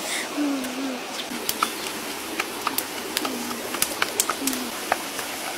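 Wood campfire crackling with many sharp pops, while a dove coos a few times in short, low, falling notes.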